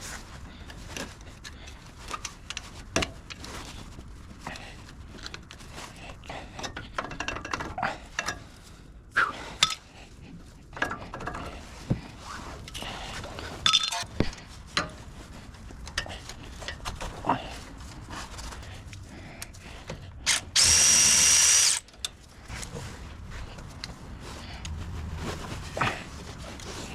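Metal tools and brake parts clinking and knocking in a string of irregular short clicks. A power tool runs once with a high whine for about a second and a half, about three-quarters of the way through.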